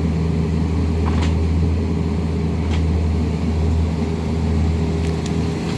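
Excavator diesel engine running steadily, a constant low drone with a few faint clicks over it.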